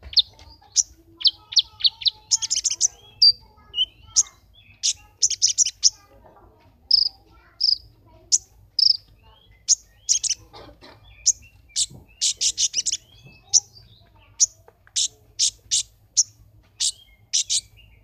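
A caged male kolibri ninja sunbird singing: a long, lively run of short, high, sharp chirps, some single and some packed into quick rattling clusters.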